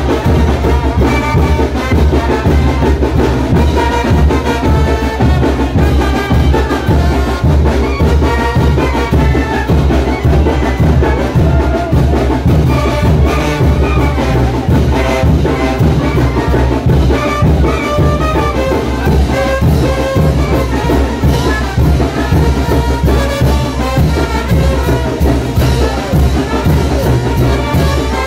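Brass band playing the music for the chinelo dance (brinco del chinelo), with trumpets and trombones over drums keeping a steady beat.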